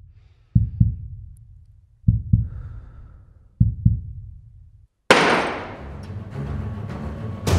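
Edited soundtrack: a heartbeat sound effect of low double thumps about every one and a half seconds, then a sudden loud hit about five seconds in that opens into dramatic background music.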